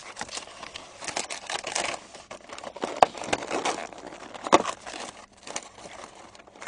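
Paper and cardboard of a takeout chicken box crinkling and rustling as it is handled, an irregular run of crackles with sharper clicks about three seconds and four and a half seconds in.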